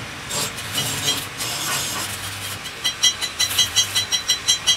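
Stick (arc) welding on a broken cast-iron gear tooth: the electrode arc crackles and sputters in quick pulses from about three seconds in, over a low welder hum, as weld metal is built up on the tooth.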